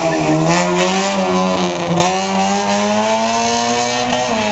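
Small rally-prepared hatchback's engine running hard through a slalom course, its pitch steady and high, rising a little and then dropping near the end.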